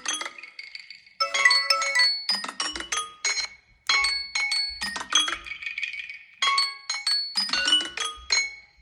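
Samsung Galaxy phone ring melody: bright, mallet-like chiming notes in quick phrases, broken by short gaps, with a held shimmering chime about two-thirds of the way through.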